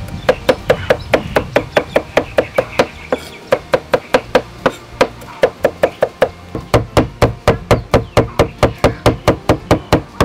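Cleaver chopping garlic on a round wooden chopping block: a steady run of sharp knocks, about four to five a second.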